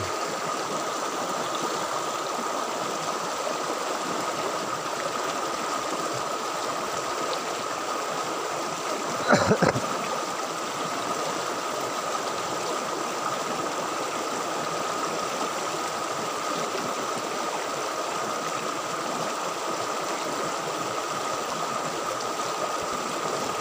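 Fast, shallow stream water rushing steadily in a churning flow, with a steady high tone underneath. A short, louder pitched sound breaks in about nine and a half seconds in.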